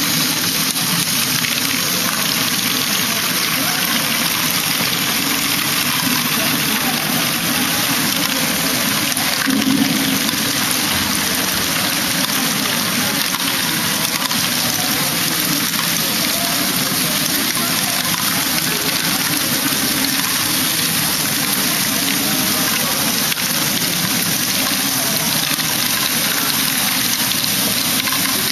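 Steady mechanical din of a loop of running LEGO Technic Great Ball Contraption modules: motors and gears whirring and small plastic balls clattering through the mechanisms.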